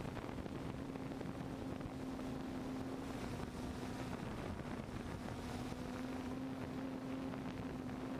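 DJI F550 hexcopter's six electric motors and propellers humming at a steady pitch, which shifts slightly about halfway through, over wind noise on the onboard microphone.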